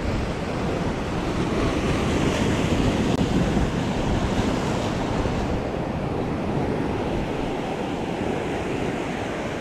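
Heavy sea surf breaking and washing over a rocky shoreline, with wind blowing on the microphone. The surf swells a little louder a few seconds in.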